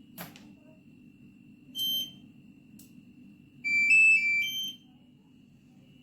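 Washing machine control panel sounding electronic signals: a click, a single short beep about two seconds in, then a louder short tune of four or five stepped notes around four seconds in, as a button is pressed or a programme starts. A faint steady hum runs underneath.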